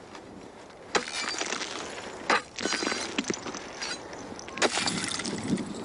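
Frozen river ice being broken up: several sharp cracking strikes, with glassy clinking and crackling of ice pieces in between.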